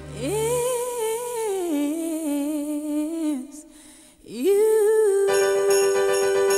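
A voice humming a slow wavering melody, sliding up into each phrase; after a short break it slides up into a long held note. About five seconds in, an instrumental music backing with a jingling beat comes in underneath.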